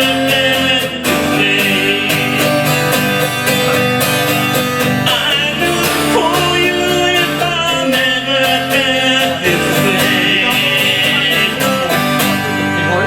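Folk song played on acoustic guitar with a singing voice, in a country style.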